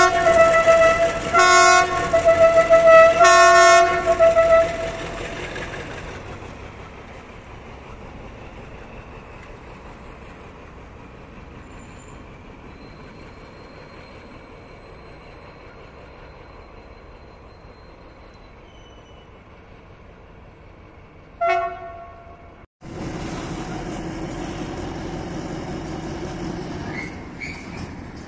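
TCDD DE 24340 diesel-electric locomotive sounding its horn in three loud blasts, with its engine running underneath and then fading to a steady idle. About 21 seconds in there is one short horn toot. After a sudden break, a freight train of loaded mineral wagons rumbles steadily along the track.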